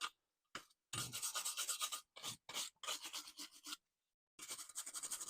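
Wire brush scrubbed back and forth over a brake caliper bracket, in quick scraping strokes. The scrubbing comes in runs, with short breaks and a longer pause a little past halfway.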